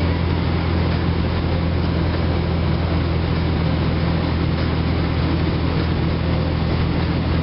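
Steady drone of a car in motion, heard from inside the cabin: a low engine and road hum under an even rush of tyre and wind noise.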